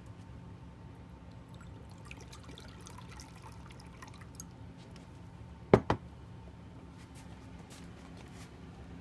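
Water poured in a thin trickle from a PUR filter pitcher into a cut-glass bowl, with faint drips. A little past the middle come two sharp knocks in quick succession, the loudest sound.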